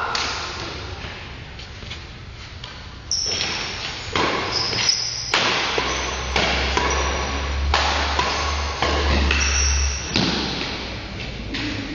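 Badminton rackets striking a shuttlecock in a doubles rally, sharp hits about once a second, with short high squeaks of shoes on the court floor between them.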